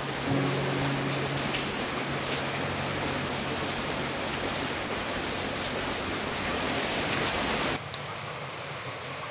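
Steady rain falling on garden plants and soil, a dense even hiss that cuts off suddenly about eight seconds in.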